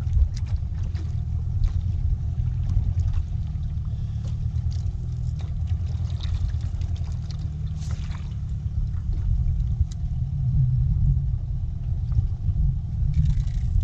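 Strong wind buffeting the microphone: a continuous low rumble that swells slightly about two-thirds of the way through.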